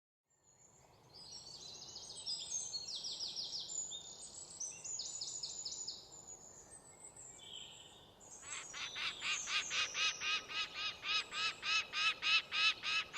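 Birds singing, with several twittering songs and fast trills. From about eight seconds in, one bird repeats a short chirp about three times a second, growing louder.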